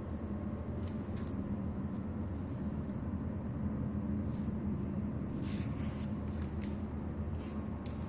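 Steady low rumble with a droning hum, with a few short faint hissing ticks scattered through it.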